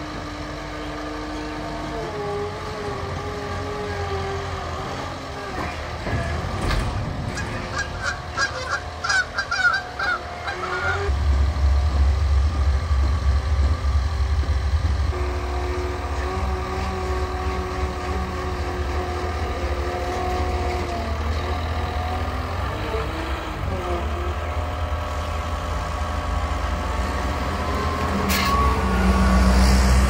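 Cat skid steer's diesel engine running and changing speed as it drives out of a trailer and down metal loading ramps, pulling harder and louder from about eleven seconds in. A short run of rapid high rattling comes about a third of the way in.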